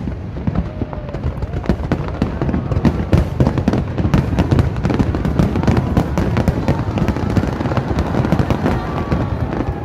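Aerial fireworks display going off in a dense, continuous barrage of bangs and crackles, many per second.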